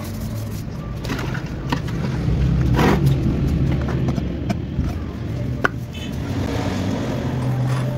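A motor vehicle engine running with a low steady hum that swells about three seconds in and again near the end, with a few sharp clicks.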